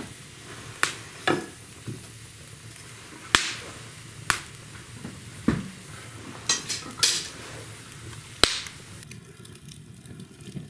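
Firewood burning in an open brick fireplace, crackling with irregular sharp pops, about a dozen in all, over a low steady hiss.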